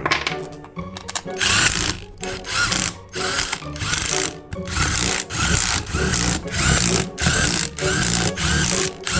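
Impact wrench running bolts down into a lawnmower transaxle case, in repeated bursts of a second or two with short pauses between bolts.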